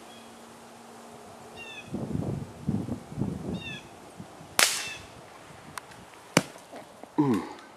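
A single sharp crack from a suppressed small-calibre hunting rifle, just past halfway, followed about two seconds later by a second, lighter sharp click.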